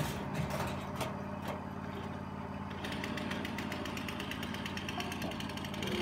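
Wood-Mizer portable sawmill with a Lathe Mizer attachment running steadily. About three seconds in, a fast, even, high rattle joins the machine sound.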